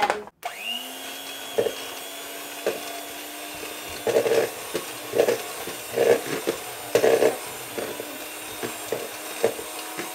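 Russell Hobbs electric hand mixer switched on about half a second in, its motor spinning up and then running steadily while the beaters cream butter and vegetable shortening in a plastic bowl. Irregular knocks and clatter come from the beaters in the bowl.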